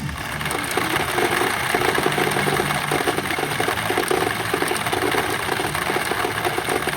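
Steady pachinko parlor din: a dense, fast clatter of steel pachinko balls running through machines.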